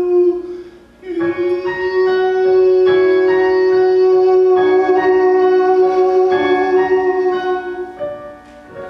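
Digital stage keyboard playing the song's closing bars: chords struck under a long held note, dying away near the end.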